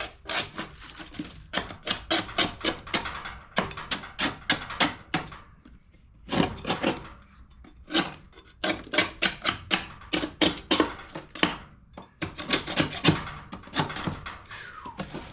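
Metal putty knife scraping caked grass off the underside of a steel push-mower deck, in quick repeated strokes that come in bursts with brief pauses.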